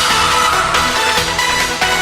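Electronic instrumental ringtone music from a Samsung Galaxy SL (GT-i9003) playing, with sustained synth notes over a stepping bass line.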